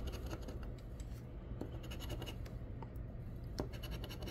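A large metal coin scratching the coating off a scratch-off lottery ticket: quiet, steady scraping with a few faint clicks.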